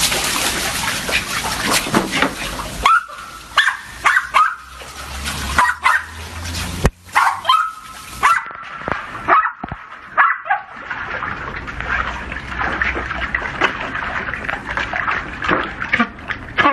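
Small dogs splashing through shallow water in a paddling pool and yipping and whining. The high yips and whines come mostly between about three and ten seconds in, over a steady splashing hiss.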